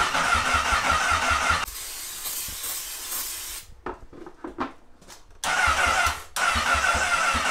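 Electric starter cranking a Honda CBR1000RR inline-four engine, which turns over in a fast even rhythm with a starter whine but does not fire. Cranking stops a little under two seconds in, a soft hiss trails off into quiet with a few faint clicks, and cranking starts again near the end with one brief break.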